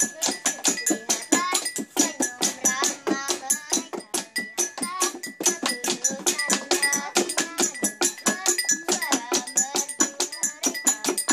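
Children singing a song together over a fast, even rhythm of tapping, with pens and sticks knocked on a wooden tabletop.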